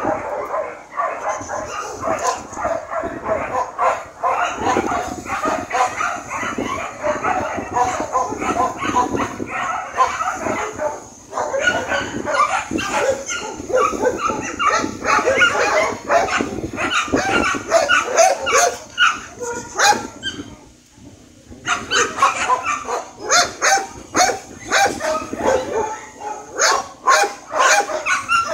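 A dog barking and yipping almost without a break, mixed with whining, with a short pause about three quarters of the way through.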